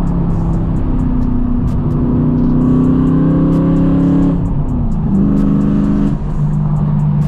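Straight-piped BMW E92 M3's 4.0-litre V8, heard from inside the car, pulling with its pitch slowly rising for a couple of seconds. The note dips about four and a half seconds in, picks up briefly, then settles to a steady lower drone near the end.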